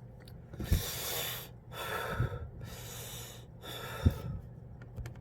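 A man taking slow, deep breaths through his open mouth, four long airy breaths in and out, as a breathing exercise meant to calm a cough. A low thump comes at the start of the first breath and again at the last.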